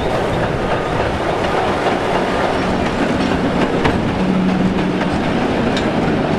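Two coupled TEM18 diesel shunting locomotives passing close by: steady engine noise and the clatter of wheels on the rails, with a few sharp clicks.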